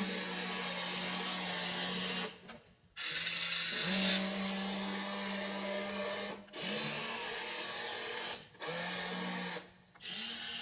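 Electric motors of a WLtoys RC excavator whining as it works, in runs of one to three seconds with short stops between, the tone shifting slightly in pitch from run to run.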